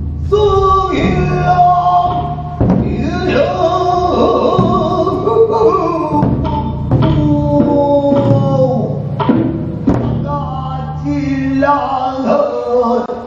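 Pansori-style male singing in long, wavering held notes over a music backing, with a few heavy big-drum (daebuk) strokes.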